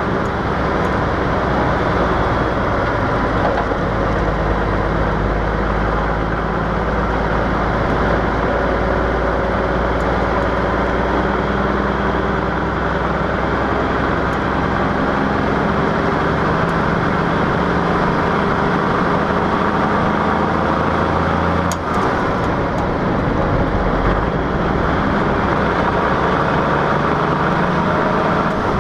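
The 855 cubic-inch inline-six Cummins 335 diesel of a 1952 Kenworth CD521 truck pulling steadily at road speed through dual 7-inch exhaust stacks. The sound dips briefly once, near the three-quarter mark, and the engine note then changes pitch.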